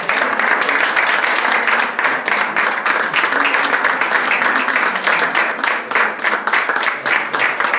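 Small audience of seated diners applauding, dense steady clapping.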